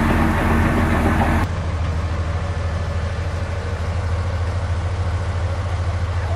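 Heavy earthmoving machine's diesel engine running with a steady, fast low throb. About a second and a half in, the sound turns abruptly duller.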